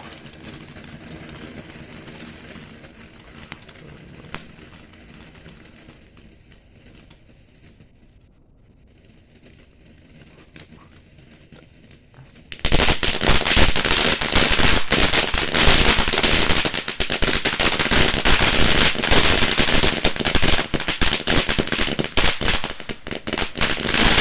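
Consumer firework fountain burning: faint and sputtering at first, then about halfway through it breaks suddenly into loud, dense crackling that keeps going.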